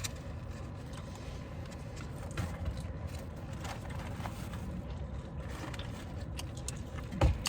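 Chewing and mouth smacking while eating, faint scattered clicks over a steady low rumble, with a low thump near the end.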